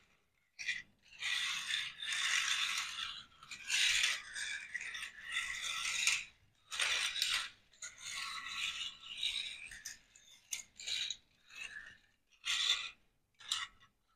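Small metal toy tractors with friction motors pushed back and forth over a hard floor, their flywheel gears whirring along with the rolling wheels. The whirring comes in repeated bursts, some brief and some about two seconds long, with short pauses between pushes.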